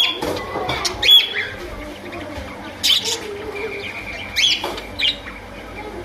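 Budgerigars chirping: a handful of short, sharp, high-pitched calls scattered about a second apart, some with a quick sweep in pitch.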